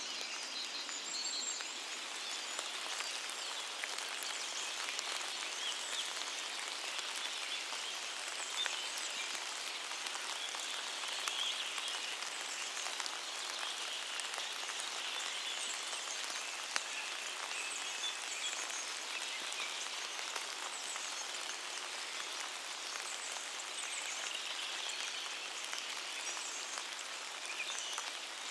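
Steady rain falling in a forest, a dense even patter of drops on leaves.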